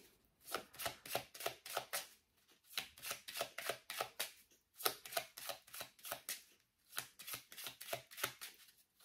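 Oracle cards being shuffled by hand: soft card-on-card flicks and rustles in short bursts, with brief pauses between them.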